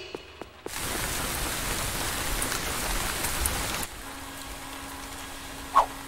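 Rain sound effect: a steady rush of pouring rain starts under a second in, drops to a quieter patter with a low steady hum about four seconds in, and a short, loud pitched blip sounds near the end.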